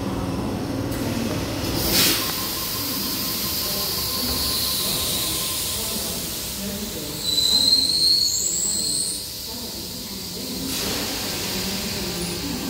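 Sydney Trains Waratah electric train pulling into an underground platform and slowing to a stop: steady running noise with a sharp knock about two seconds in, then high squeals from the wheels and brakes from about seven to nine seconds before the noise drops away.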